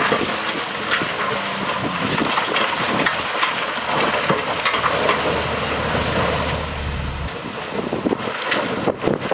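Heavy earthmoving machinery working dirt: a diesel engine running under a dense crackle of many small knocks, like soil and stones shifting, with a low hum from about four to seven seconds in.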